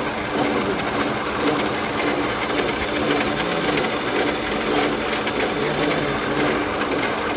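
Metalworking machine running steadily, a constant whirring with a steady hum.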